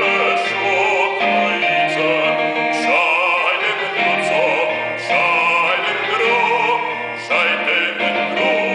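Operatic singing by a male soloist with wide vibrato, accompanied by a digital stage piano.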